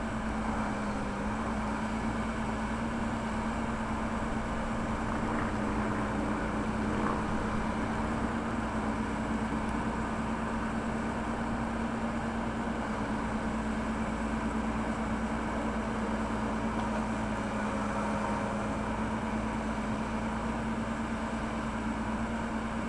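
Backhoe loader's diesel engine running steadily, a constant drone that holds its pitch.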